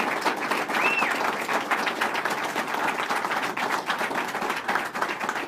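Audience applauding: a dense patter of many hands clapping, with one short high whoop about a second in.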